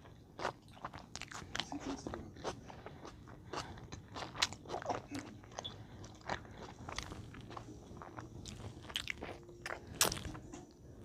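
Close-up eating sounds: a person chewing a steak-and-cheese hoagie, with many irregular wet, crunchy clicks from mouth and bread.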